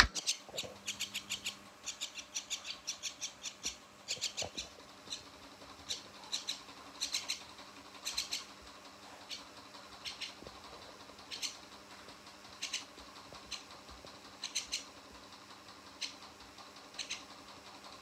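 Young Javan myna giving short, high squeaky chirps, in quick runs for the first few seconds and then single or paired chirps every second or so.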